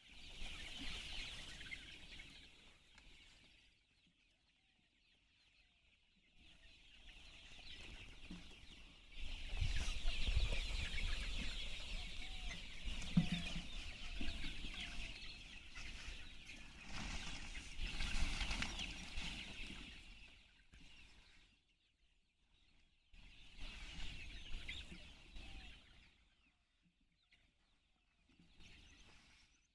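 A large flock of Sonali chickens clucking and chattering together. The noise comes in stretches and drops to near silence a few times.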